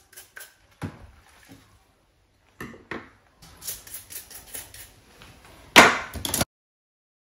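Small metal bicycle parts knocking and clinking as they are scrubbed by hand in a steel sink of soapy water. Near the end a stiff brush scrubs a pedal in quick strokes, the loudest sound, which then cuts off suddenly.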